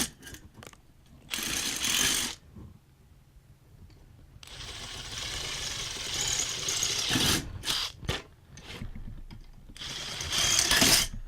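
Power drill running in three bursts, the longest about three seconds, enlarging screw holes that are too small in a small PC case.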